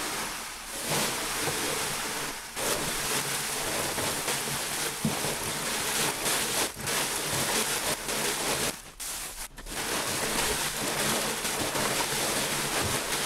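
Lump charcoal tumbling and rattling inside a hand-turned wooden tumbler, sifting through the wire mesh screens and falling onto plastic tarps: a continuous rushing rattle that briefly stops about two and a half seconds in and again around nine seconds in.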